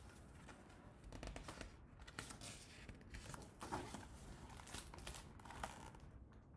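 Paper pages of a picture book being turned and handled, a faint rustling and crinkling.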